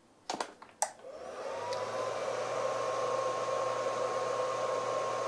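Two clicks as the positive clamp goes onto the battery terminal. Then a LiTime 20 A lithium charger's cooling fan spins up, its whine rising and settling into a steady whir with a low hum. This is the charger switching on to charge a 23 °F LiFePO4 battery, which its low-temperature protection allows for only a few seconds.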